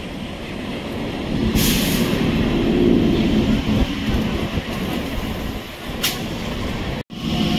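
Electric suburban EMU local train pulling into the platform: a rumble of wheels on rails that grows louder over the first three seconds as the coaches roll past, with a short hiss about one and a half seconds in.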